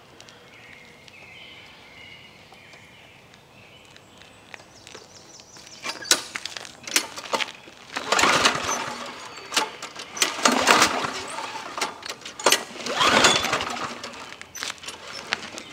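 Recoil pull cord of a Craftsman push mower's small four-stroke engine being yanked three times in the second half, each pull a short rattling crank of the engine. The engine does not catch. These are cold-start attempts on a freshly primed engine with ether sprayed into the intake.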